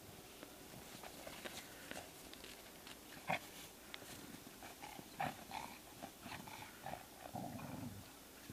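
Two dogs, a chow-rottweiler mix and a chow-shepherd mix, play-wrestling in snow: scattered short growls and grunts with small scuffling sounds, a sharp knock about three seconds in, and a longer, lower growl near the end.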